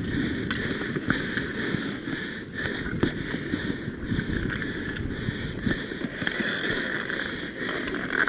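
Inline skate wheels rumbling on the rink surface with wind buffeting the microphone, and a few sharp clicks of hockey sticks and ball or puck.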